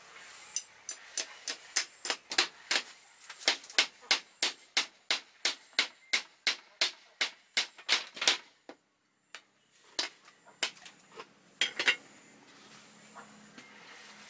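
A tool striking a hard material in a quick even rhythm, about three blows a second. The blows stop abruptly about eight seconds in, and a few scattered blows follow a second or two later.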